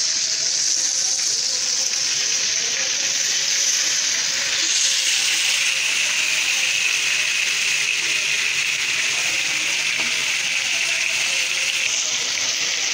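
Flour-coated fish pieces sizzling in hot oil in a frying pan: a steady frying hiss. Its pitch drops about five seconds in and goes higher again near the end.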